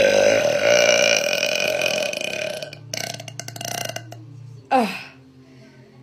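A woman's long, loud burp held at a fairly steady pitch for nearly three seconds. A short vocal sound falling in pitch follows near the end.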